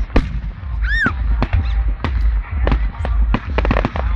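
Fireworks display: a quick, uneven string of sharp bangs and cracks over a low rumble, with a brief high whistle that rises and falls about a second in.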